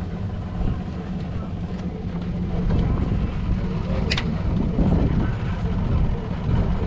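Boat motor idling in neutral, a steady low rumble with wind on the microphone and a sharp click about four seconds in.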